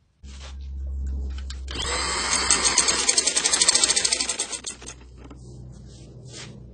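Motor-driven domestic sewing machine: the motor hum starts suddenly, then the needle runs a fast, evenly ticking stretch of stitching through the fabric for about three seconds before dropping back to a softer hum.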